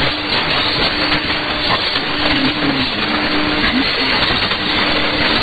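Shortwave AM reception of a weak broadcast signal on 6100 kHz, mostly buried in loud, steady static and hiss, with a faint low tone coming and going underneath.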